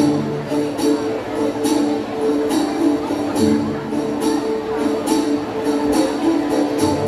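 Recorded dance music played over stage loudspeakers: held melody notes over a steady jingling percussion beat, about two strokes a second.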